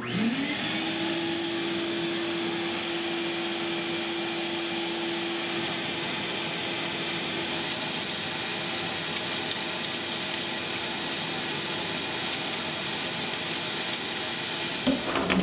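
Ridgid wet/dry shop vacuum switched on, its motor spinning up with a rising whine in the first second. It then runs steadily, drawing air through a cyclone dust separator on its intake with an even rushing sound.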